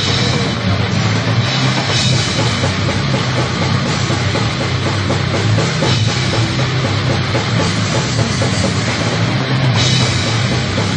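Heavy metal band playing loud: distorted electric guitar and bass over a pounding drum kit, with the full band coming in right at the start after a guitar lead-in.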